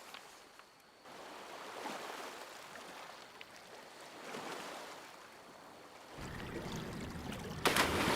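Small waves washing in and receding in slow surges. About six seconds in a low rumble joins, and a louder rush of noise comes near the end.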